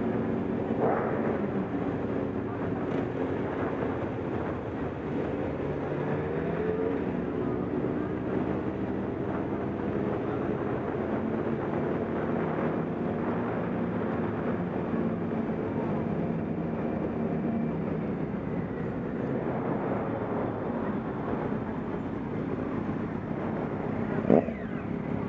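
Motorcycles riding slowly together at low revs, the nearest engine a Honda CBF600 inline-four, with an engine note rising and falling about six seconds in. One sharp knock comes about a second before the end.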